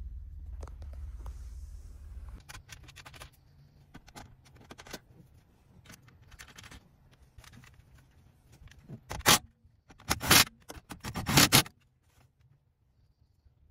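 Hands handling car speaker wiring and its plastic connector under a rear deck: light rustles and clicks, then three loud scraping bursts about nine, ten and eleven seconds in. A low rumble fills the first two seconds.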